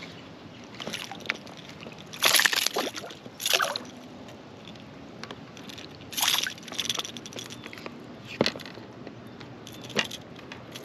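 Water splashing and sloshing beside an inflatable kayak in short, irregular bursts, the loudest a little over two seconds in, as a small largemouth bass is handled at the surface.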